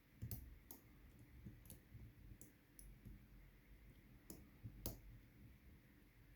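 Faint, scattered metallic clicks of a lock pick working the pins inside an old Winkhaus 5-pin cylinder lock during picking, the two clearest a little past the middle.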